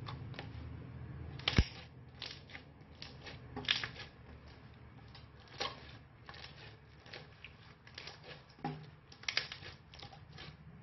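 Purple slime being squished, stretched and folded by hand, with irregular sticky crackles and pops, the loudest a sharp pop about one and a half seconds in.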